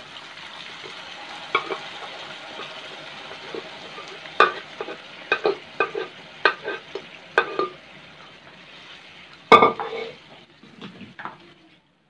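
Soaked chana dal poured into a hot non-stick kadhai of tomato-onion masala, sizzling in the oil, the sizzle slowly dying down. Over it come a string of sharp clicks and knocks of a spatula and bowl against the pan as the dal is stirred in; the loudest knock comes about nine and a half seconds in.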